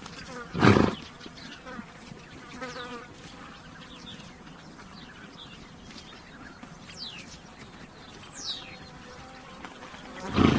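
Flies buzzing around a horse, broken by two short, loud snorts from the horse, one about a second in and one near the end, with a few high, falling bird chirps in between.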